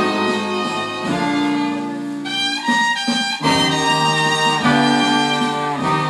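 A 7-inch vinyl single playing on a turntable: an instrumental blues passage led by horns, held notes shifting every second or so, with a brief lighter stretch without the low notes about halfway through.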